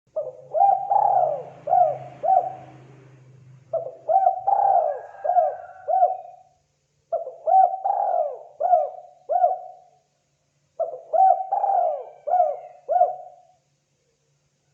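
Spotted dove calling: four cooing phrases of several notes each, separated by short pauses.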